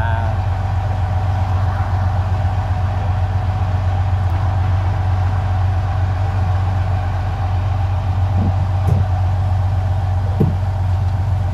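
Fishing boat's engine running at a steady speed, a loud low drone, with a few short knocks in the second half.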